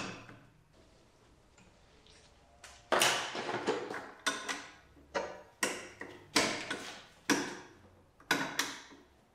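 Small metal kart brake parts, the master-cylinder rod and its safety clips, being fitted by hand: a click at the start, then from about three seconds in a string of sharp metallic clicks and clinks, roughly one or two a second.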